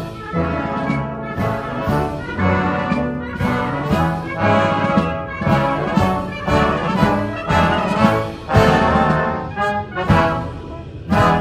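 Brass band playing a national anthem, with trumpets and trombones in strong accented chords about twice a second.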